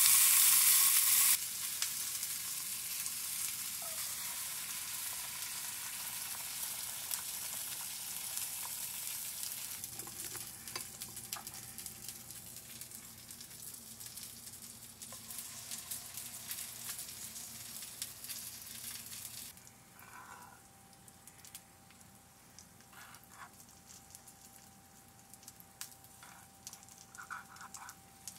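Food frying in a hot non-stick pan, chicken sausages and then pancake batter, with a sizzle that is loudest for the first second, drops sharply, then carries on steadily and grows quieter about two-thirds of the way through. Near the end, light clicks and scrapes of a fork stirring eggs in the pan.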